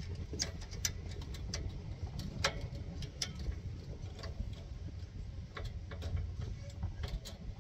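Scattered sharp metal clicks and taps, a dozen or so at irregular intervals, as fencing pliers and a fence stretcher are worked on a barbed-wire strand, over a steady low rumble.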